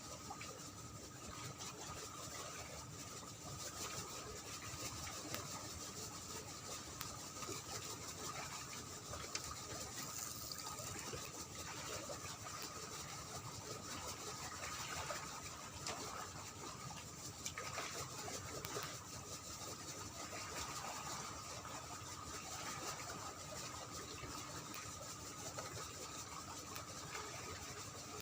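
Steady hum of a running engine with a constant whine, with scattered small clicks over it.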